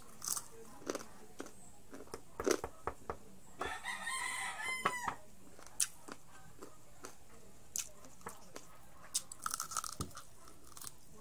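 Crunching bites of crispy fried pork strips, a scatter of sharp crackles throughout. About three and a half seconds in, a rooster crows once in the background, a call of about a second and a half that drops in pitch at its end.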